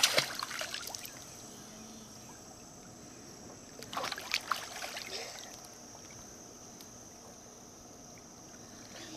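Pool water splashing as a child swims with his face in the water. It comes in two bursts, one right at the start and one about four seconds in, with quiet lapping between them.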